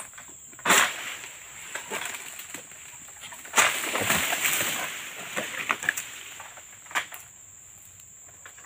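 Oil palm fronds being worked with a long-poled harvesting sickle (egrek): a sharp crack about a second in, then a loud rustling crash of palm leaves a few seconds in that fades over a second or two, and another snap near the end. A steady high insect drone runs underneath.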